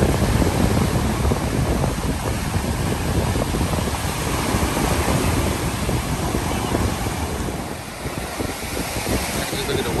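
Ocean surf washing on a beach, with wind buffeting the microphone; the rush eases a little near the end.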